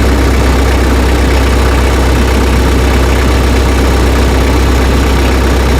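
Tractor engine running at a steady idle, with a strong, even low hum.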